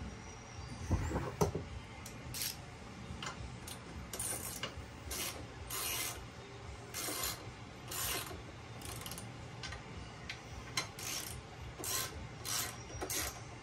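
Hand ratchet wrench clicking in short rasping strokes, again and again, as bolts are run in on a motorcycle crash-bar mount, with a couple of knocks about a second in.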